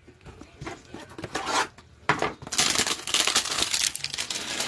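Handling of a cardboard trading-card hanger box with gloved hands: a few light clicks and taps at first, then from about two seconds in a dense scraping rustle as the box is picked up and turned over.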